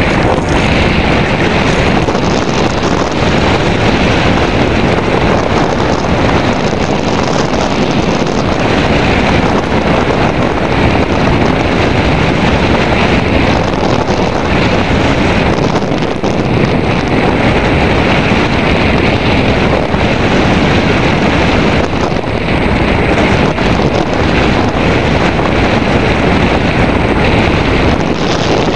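Loud, steady rush of airflow over the microphone of a camera mounted on an Airwave Calypso hang glider in flight: wind noise from the glider's airspeed.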